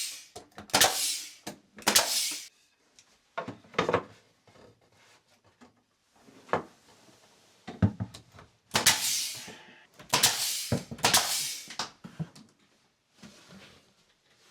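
Irregular knocks and scrapes of wooden trim boards being handled and fitted, some short and sharp, others drawn out for up to a second.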